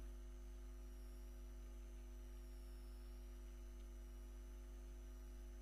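Steady electrical hum with several constant low tones and a faint, slightly wavering high whine, with no other sound above it.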